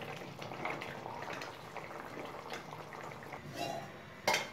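Steel ladle moving through thick tomato curry in a steel kadai: faint soft liquid stirring and scraping, with one sharp knock near the end.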